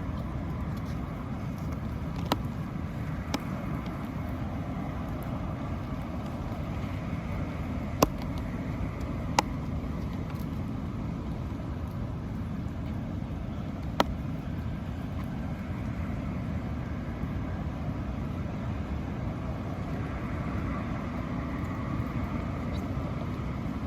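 Steady low rumbling outdoor background noise, with a handful of sharp single clicks scattered through it.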